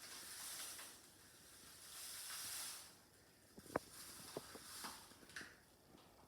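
Sand being poured slowly into a balloon, giving two soft trickling hisses, followed by a scatter of light clicks and taps, the sharpest about four seconds in.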